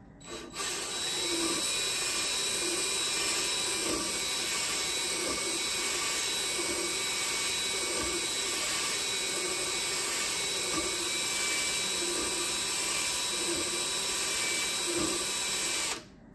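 Cordless drill spinning a small cylinder hone inside a hydraulic brake/clutch cylinder bore lubricated with WD-40, to clean up the bore. The drill spins up at the start, runs at a steady speed with a faint regular rubbing pulse as the hone works the bore, and stops suddenly near the end.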